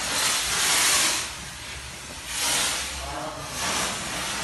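Handheld sanitiser fogger spraying disinfectant fog with a steady hiss that swells and fades in waves, loudest around the first second and again about two and a half seconds in.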